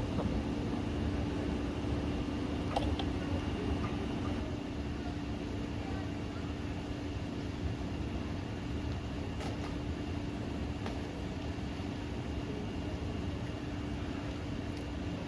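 Steady background room noise with a constant low hum and a few faint clicks.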